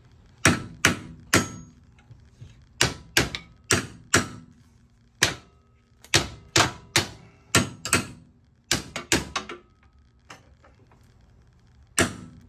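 Hammer blows on metal at the rear leaf spring mount of an EZGO golf cart, driving the bolt through the spring eye and its new bushing. About a dozen and a half sharp strikes come in uneven groups, with a quicker, lighter flurry a little past the middle and a single blow near the end.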